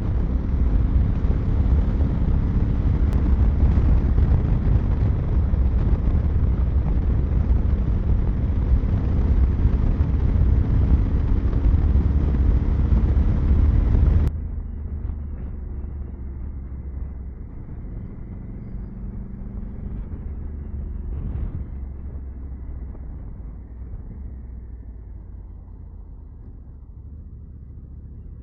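Wind rushing over the microphone and a 2021 Honda Africa Twin's parallel-twin engine running on the move. About halfway through the sound abruptly turns muffled and quieter, then keeps fading.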